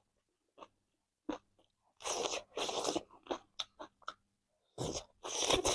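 Close-miked eating of chicken: crunchy bites and chewing, with short mouth clicks and two longer crunching bursts, one about two seconds in and one near the end.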